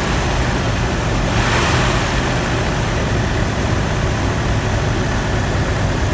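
GMC 2.8-litre inline-four engine idling steadily, firing on all four cylinders.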